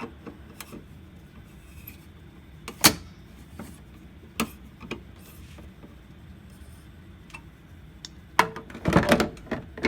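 Clicks and knocks of hardware being handled while a fire alarm system is reset: one sharp click about three seconds in, another near four and a half seconds, then a quick cluster of rattling clicks near the end. No alarm is sounding.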